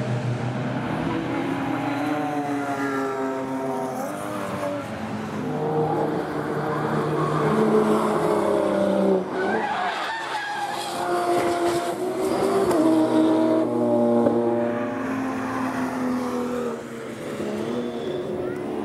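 Racing car engines at full throttle, their notes climbing and stepping through gear changes as several cars go by. There is a short burst of tyre squeal about halfway through.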